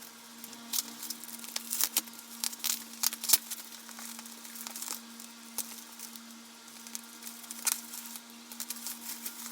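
Bubble wrap being handled and pulled off a packed item: irregular crinkling and crackling of plastic.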